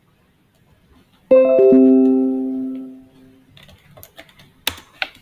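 A computer notification chime: a few quick bell-like notes sounding together and ringing out over about two seconds. A couple of sharp clicks follow near the end.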